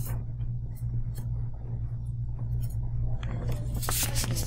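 A steady low electrical hum on the recording, with faint scattered rustles and ticks, and a louder breathy rustle about four seconds in.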